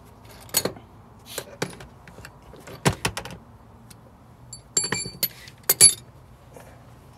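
Metal hand tools clinking and clattering as a socket and ratchet are handled: a string of separate sharp knocks and clinks, a few with a short metallic ring, the loudest about three and about six seconds in.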